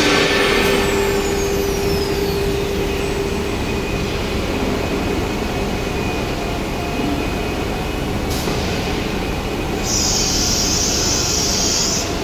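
CNC router spindle winding down with a falling whine over a steady machinery hum. Near the end comes a hiss of compressed air lasting about two seconds, the pneumatic release of the spindle's automatic tool change.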